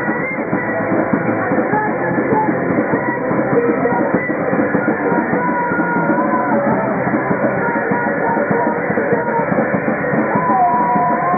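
A rock band playing live and loud, with drums and guitar, heard dull and muffled with no high end.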